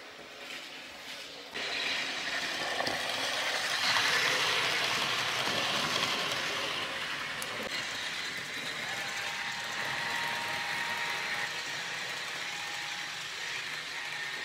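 TT:120 model Gresley A4 Pacific with a coreless motor running along the layout track: a steady rushing rattle of small wheels on rail. It jumps in loudness about a second and a half in and is loudest around four seconds in as the loco passes close. A faint thin whine sits over it in the second half.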